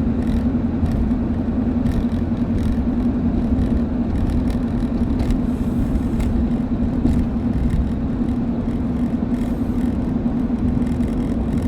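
Steady droning hum at one pitch from a 2001 Ford Escape on the move, over low road rumble. The noise comes only while the vehicle is moving, and the owner wonders whether it is a wheel bearing or a tire.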